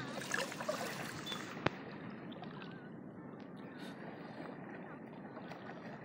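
Steady noise of river water and open air, with faint distant voices in the first second and a single sharp click about a second and a half in.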